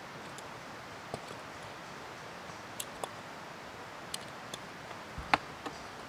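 Scattered small clicks and ticks, with one louder click and thud about five seconds in, from straps and buckles being undone on a dry bag strapped to a motorcycle's rear rack. A steady background hiss runs underneath.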